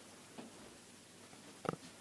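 Quiet hands working on a bare back, then one short sharp crack near the end as the spine is twisted in a side-lying rotation adjustment.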